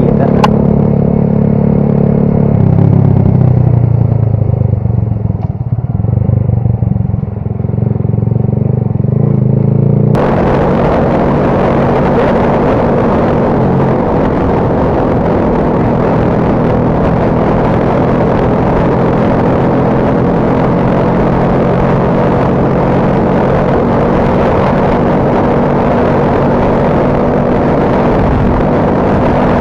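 Motorcycle engine running while riding, its note dropping lower about three seconds in. About ten seconds in the sound changes abruptly to a steady hiss of wind and water over the running engine.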